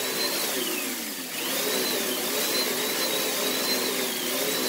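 An electric motor running with a whine over a rushing airflow hiss, revved up and down. Its pitch falls about a second in, climbs back and wavers, then falls away near the end.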